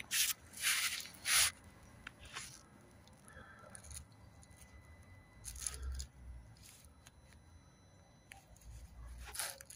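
Handling noise while a pin probe on tester leads is held in a van's NOx sensor wiring loom: short scratchy rubs and scrapes. Several come in the first second and a half, and more come around six and nine and a half seconds in.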